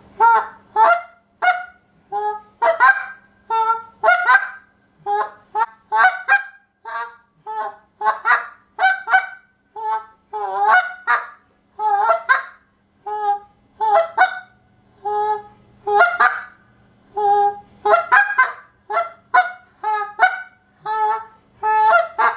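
A hand-blown reed goose call sounding a slow calling sequence of distinct moans and clucks, a steady string of short calls, about one and a half a second. It is the slower, more spaced-out calling used once geese are working in close, to sound more realistic.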